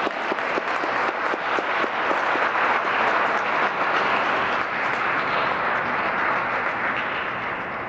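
Audience applauding after a band's performance, a dense patter of many hands clapping that begins to fade near the end.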